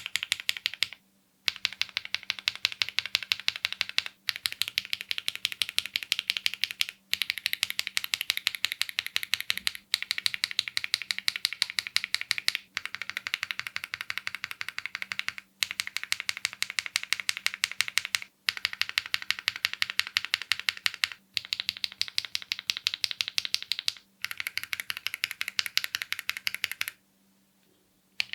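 Mechanical keyboard fitted with factory-lubed KTT Coconut Latte linear switches being typed on quickly. The key clacks come in runs of about three seconds with short pauses between them.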